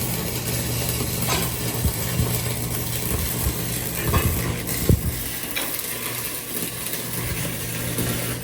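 Workshop noise during exhaust work on a car: a steady hum and hiss with a few metallic knocks and clinks.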